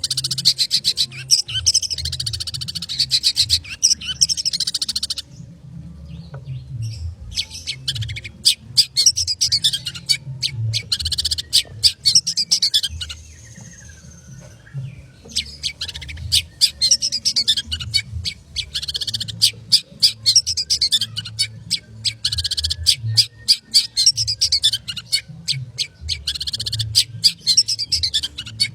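Long-tailed shrike (cendet) in full song, pouring out fast, tightly packed runs of rapid high notes, with two short pauses, about five and about thirteen seconds in.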